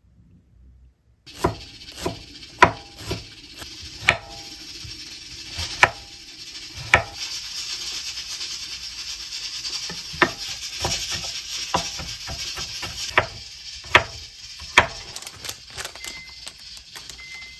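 Kitchen cooking sounds: sharp knocks and clinks of utensils and dishes at irregular intervals over a steady hiss, starting about a second in.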